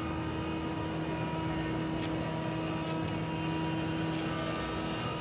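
Steady running of a woodworking power tool's motor: an even hum and whine that holds one pitch with no change in load.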